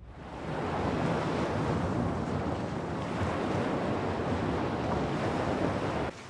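Ocean surf and wind: a steady rush of sea noise that swells in over the first second and cuts off suddenly near the end.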